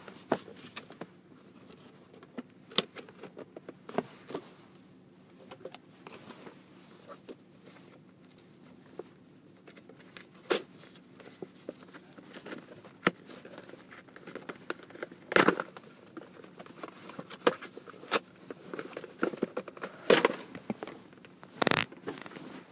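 GoPro Hero 3 retail packaging of clear plastic and cardboard being broken open by hand: scattered crinkling, tearing and clicking, with a few louder snaps in the second half.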